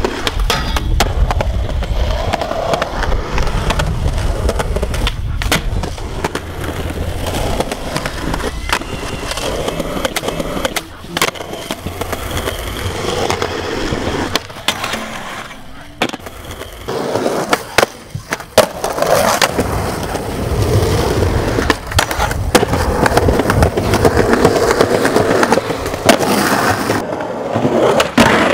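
Skateboard wheels rolling on concrete, with the sharp cracks of tail pops and board landings at intervals.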